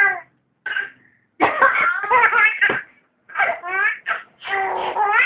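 A person's fake cough and a baby laughing at it, in several short bursts of laughter.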